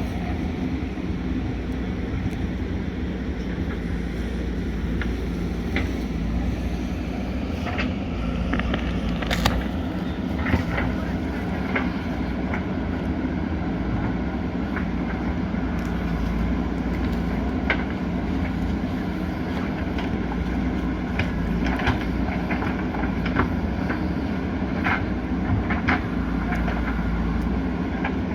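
JCB 3DX backhoe loader's diesel engine running steadily under load, with scattered sharp knocks and clanks as the bucket works against rock and stone.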